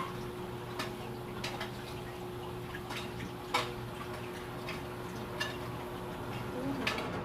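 Room tone: a steady low hum with scattered small clicks and knocks at irregular intervals. The sharpest knock comes about three and a half seconds in.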